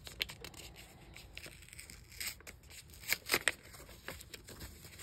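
Paper packaging being peeled open and handled by hand: scattered rustling and crinkling, with louder short rips about two seconds in and a cluster of them around three seconds in.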